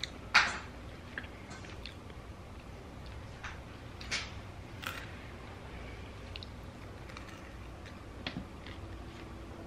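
Someone eating a chicken wing close to the microphone: a few short, wet mouth smacks and chewing noises as the meat is pulled off the bone and eaten. The loudest comes just after the start, and the others are spread through.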